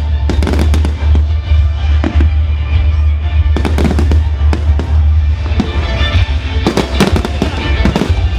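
Fireworks display: clusters of sharp bangs and crackles, with bursts about a second in, around four seconds and again near seven seconds, over music and a constant low rumble.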